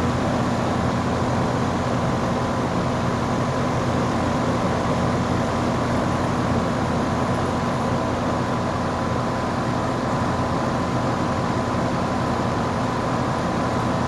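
2016 Lennox 2-ton heat pump running steadily in heat mode: a constant mechanical hum with a thin, steady high whine over it.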